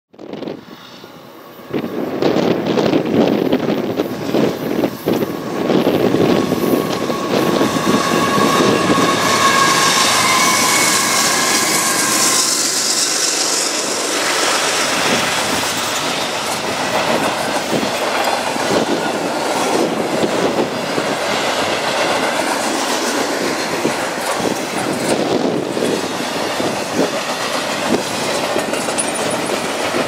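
Double-stack intermodal freight train rolling past at speed: steady rumble and clatter of steel wheels on rail from the articulated container well cars. A thin, high wheel squeal rises over it from about nine to thirteen seconds in.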